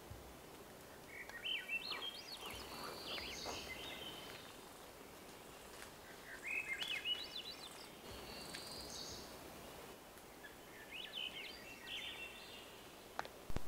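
Swainson's thrush singing: three phrases a few seconds apart, each a run of notes spiralling upward in pitch.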